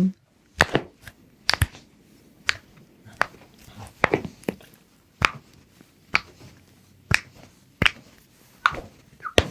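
A series of a dozen or more short, sharp clicks, irregularly spaced about half a second to a second apart.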